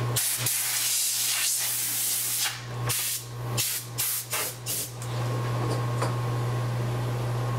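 Compressed air blasting broken glass shards off an iPad's frame. One long hissing blast of about two and a half seconds is followed by about six short puffs.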